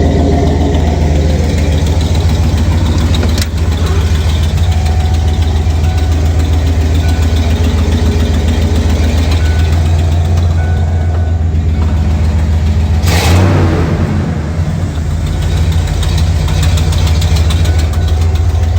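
1989 Ford F-150 engine running steadily, with an exhaust leak audible in its note. A brief rush of noise comes about thirteen seconds in.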